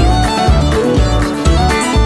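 Background music: a fiddle-led tune over a steady beat.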